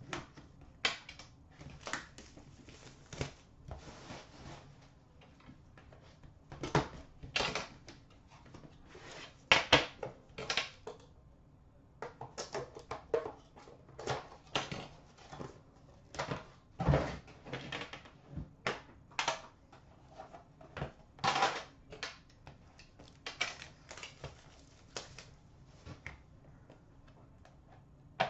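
Shrink-wrap being cut and stripped off a metal Upper Deck The Cup hockey card tin: plastic crinkling and tearing with many irregular sharp clicks and knocks as the tin is handled and its lid opened.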